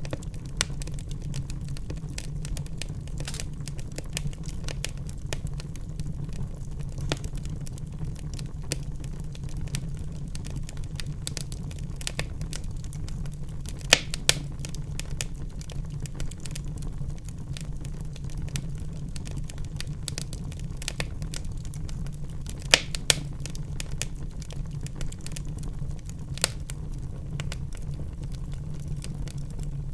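Fire burning in a fireplace, crackling steadily with many small sharp pops over a low rumble, and a few louder pops now and then.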